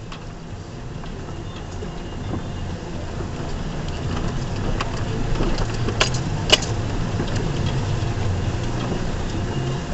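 2004 Ford Ranger's 4.0-litre V6 running as the truck drives an off-road trail, growing louder over the first few seconds and then steady, with a few knocks, the sharpest about six and a half seconds in.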